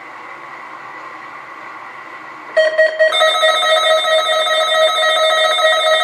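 NOAA Weather Radio warning alarm tone, a steady 1050 Hz tone, playing from a weather radio. About two and a half seconds in, Midland weather radios set off by the tone start sounding their loud electronic beeping alarms, and a second alarm joins half a second later.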